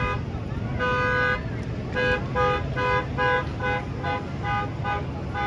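Electric vehicle horn honking: one toot about a second in, then a quick run of short toots, about two or three a second, ending in a longer toot, over a low steady rumble.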